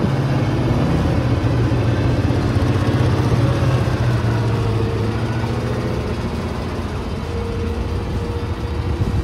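GAZ-66 off-road truck's engine running as the truck crawls over the trial course, loud and steady at first, easing off after about six seconds.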